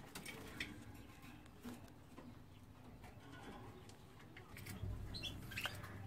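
Faint clicks and rustling as a plastic nest basket is hooked onto a wire canary cage, with canaries faintly calling and fluttering.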